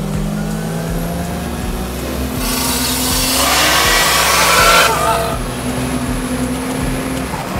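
A VL Commodore's turbocharged RB30 straight-six accelerating hard, heard from inside the cabin. In the middle there is a stretch of loud rushing noise, and near the end the revs climb again.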